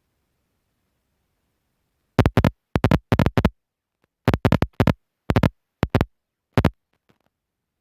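Rubbing and scratching on the phone's microphone: a dozen or so short, loud scratchy bursts in quick clusters of two to four, starting about two seconds in and stopping just before the end, with dead silence between them.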